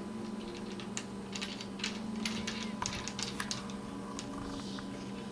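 Light, irregular clicks and taps of small metal parts being handled and fitted: rail clamps and hardware going onto the shotgun's barrel and magazine tube.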